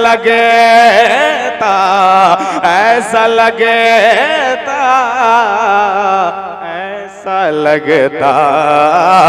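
A man's solo voice singing an Urdu naat unaccompanied into a microphone, drawing out long ornamented notes with heavy vibrato, with a short breath about seven seconds in.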